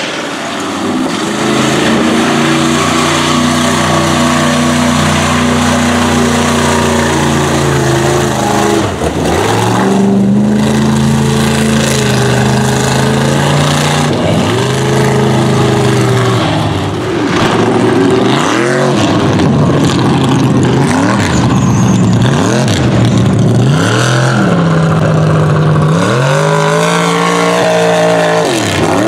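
Mega mud trucks' engines running at high revs as they plow through a mud pit, with mud and water thrown up by the tyres. The engine pitch is held high at first, then swings up and down again and again with the throttle in the second half.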